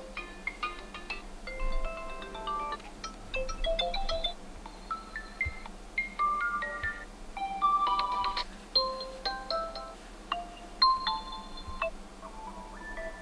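Ringtones of an Infinix Hot 30 phone playing, short melodies of pitched notes, one tune giving way to the next as each ringtone is previewed.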